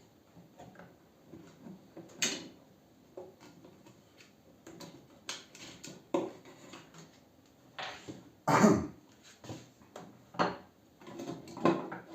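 Irregular clatter, clicks and knocks of metal parts and tools being handled while a microwave oven is taken apart, with a louder clattering clunk about eight and a half seconds in.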